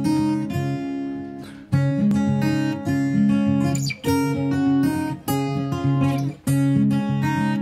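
Background music: an acoustic guitar playing a tune of plucked and strummed chords.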